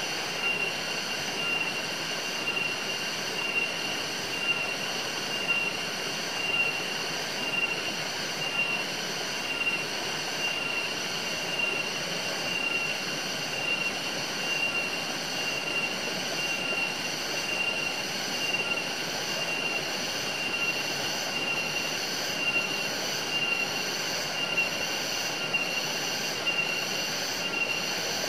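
Shallow rocky forest stream trickling and splashing over stones, with an insect chorus over it: a steady high whine and a higher chirping that pulses about once a second.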